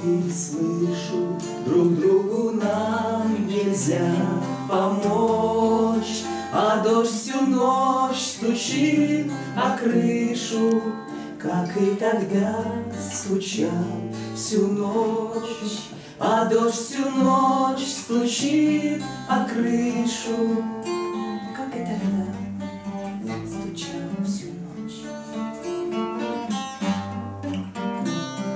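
Two acoustic guitars strummed and picked together while a woman and a man sing a duet. About twenty seconds in the singing drops away and the guitars play on alone.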